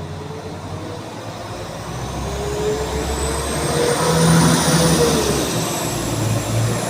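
Northern Class 195 diesel multiple unit pulling away and accelerating, its engine note and a high whine rising together. The sound grows louder and peaks a little past the middle, where the pitch dips and then runs on.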